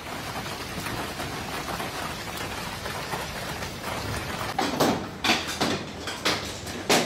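Heavy hail falling with rain, a steady hiss. From about four and a half seconds in comes a run of loud, sharp knocks as hailstones strike a hard surface close to the microphone.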